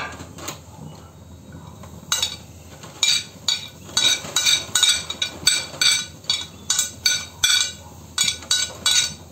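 Repeated sharp clinks of kitchenware against a metal kadai, starting about two seconds in and settling to about two a second, as chopped onions are tipped in from a glass plate.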